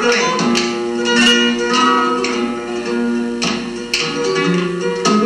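Acoustic guitar played flamenco-style: chords struck sharply every half second or so, ringing between the strokes, with single notes picked in between.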